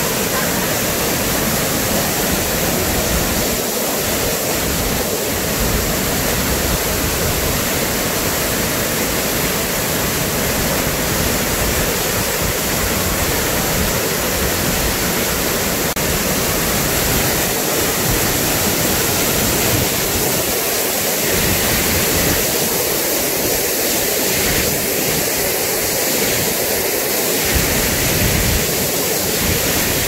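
Artificial waterfall pouring down a rock face into a pool close by: a steady, loud rush of falling water.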